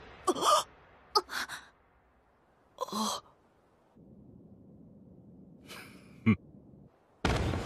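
A few short wordless vocal sounds, gasps and grunts from anime characters' voices, separated by quiet. There is a sharp hit about six seconds in and a loud burst of sound near the end.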